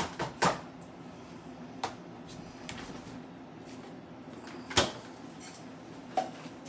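A few separate knocks and clicks of kitchen items being handled at the stove, such as a can and pots, with the sharpest knock a little before the five-second mark.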